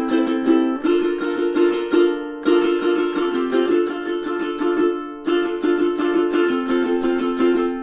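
Kala KA-SMHT-SC solid mahogany tenor ukulele played solo: a quick run of plucked notes over chords that change every second or two.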